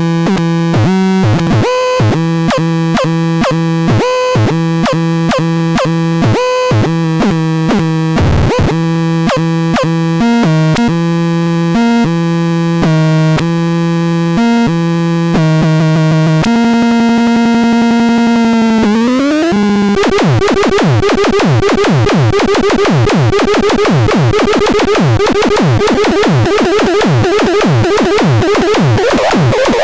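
Pharatron 2 electronic synthesizer playing short, rhythmic pitched notes. About halfway through, a held note slides upward, and then comes a fast run of falling pitch sweeps, roughly two a second.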